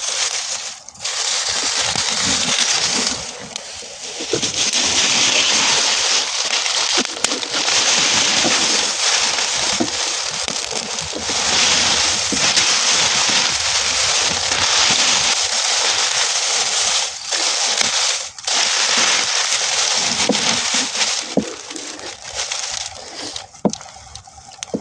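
Burning straw crackling and hissing densely, a steady rush of many small pops that swells and eases, with a few brief near-gaps.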